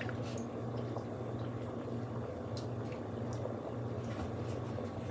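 Large pot of water at a rolling boil, bubbling steadily, with a few light clicks of a wire whisk stirring gravy in a small pot.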